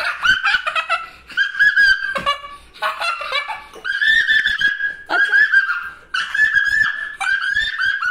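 A young boy's imitation of a witch's voice: a shrill, high-pitched cackling laugh in a string of about eight phrases, each under a second long.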